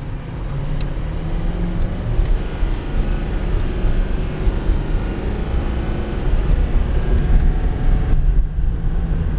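2008 Ford F250's 6.4 L Power Stroke turbo-diesel V8 pulling the truck under acceleration, heard from inside the cab with road and wind rumble, getting gradually louder as the truck speeds up through the automatic transmission's gears.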